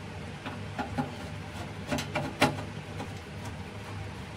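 A few short, light clicks and knocks from the metal case of a Denon AVR-1612 AV receiver being handled as it is opened, the sharpest about two and a half seconds in, over a steady low hum.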